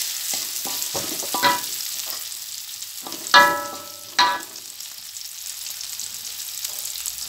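Sliced shallots and garlic sizzling in hot oil in a wok as they are stirred with a wooden spatula. Three sharp ringing knocks, the spatula striking the metal wok, come about a second and a half in and twice more a little past the middle.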